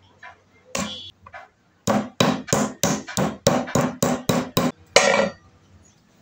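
Meat tenderizer with a ridged metal head pounding a thin slice of raw meat on a wooden cutting board: a couple of single blows, then a fast run of about a dozen knocks, roughly four a second, that stops about five seconds in.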